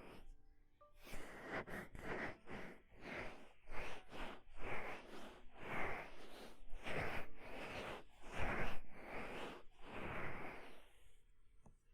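Hands rubbing and massaging the ears of a binaural microphone for ASMR, in a run of short rubbing strokes about two a second that stop about a second before the end.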